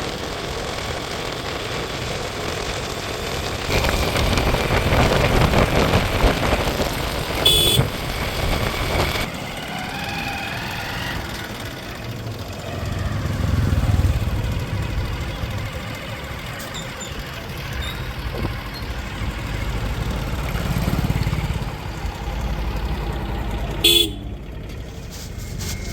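Diesel engines of a backhoe loader and tractor running at work, swelling and easing with the load. A horn gives two short toots, one about eight seconds in and one near the end.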